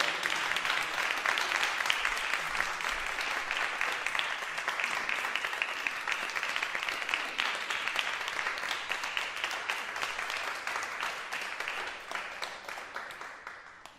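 A crowd applauding: dense, many-handed clapping that holds steady, then gradually fades out over the last few seconds.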